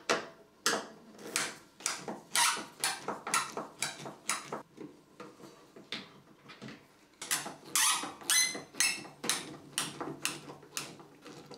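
Hand screwdriver turning out the screws that hold a Hotpoint washing machine's plastic water inlet valve. It makes a run of short creaks and scrapes, about two a second, some with a brief squeak.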